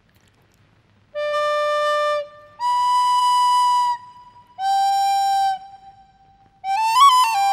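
A flute playing three separate long held notes, low, then high, then in between, followed near the end by a quick run of short stepped notes.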